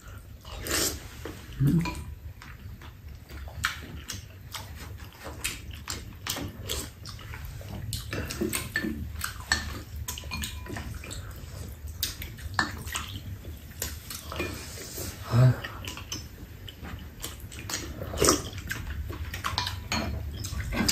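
Spoons and chopsticks clicking and scraping against ceramic bowls as two people eat soup, with slurping and chewing noises between the clicks.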